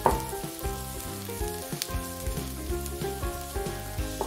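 Chopped onions and garlic sizzling in hot oil in a kadhai, stirred with a spatula near the end, with a sharp clink right at the start. Soft background music plays along.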